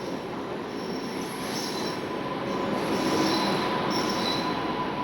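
Rajdhani Express train rolling past as it accelerates out of the station: a continuous rumble of wheels on rails, with faint high wheel squeals coming and going. It grows louder about three seconds in.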